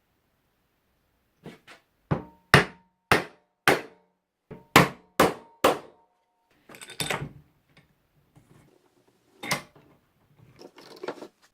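A hammer striking, about ten sharp blows in a loose rhythm, some leaving a short metallic ring. These are followed by a few rougher knocks and handling noises.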